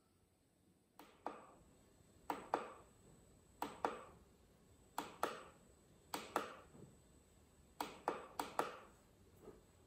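Push-button on the side of a Hasbro Master Chief replica helmet clicking as it is pressed and released about seven times, switching the helmet's LED lights on and off. The clicks come in pairs about a quarter second apart, each with a short ring after it.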